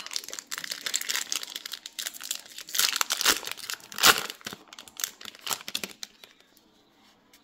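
Upper Deck Series 1 hockey card pack wrapper crinkling and tearing as it is opened by hand, loudest about three and four seconds in. The crackling stops about six seconds in.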